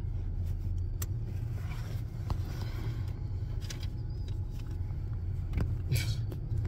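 Steady low rumble of a car heard from inside its cabin, with a few faint clicks and rustles.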